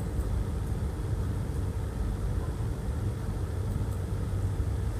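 Steady low rumble with a faint steady hum, unchanging throughout, with no speech.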